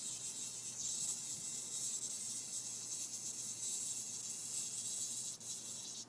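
A cicada giving its distress buzz, a continuous raspy high-pitched buzz of a disturbed insect being batted at by a kitten, with a short break shortly before it cuts off suddenly at the end.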